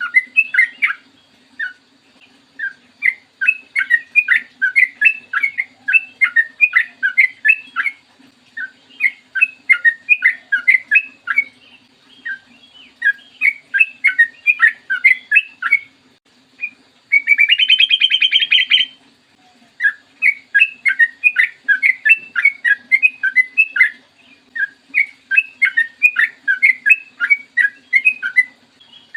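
Yellow-vented bulbul (trucukan) singing in long, rapid runs of chirping notes, in bouts of a few seconds with short gaps between, and a harsh buzzing rattle about seventeen seconds in. A faint steady low hum lies underneath.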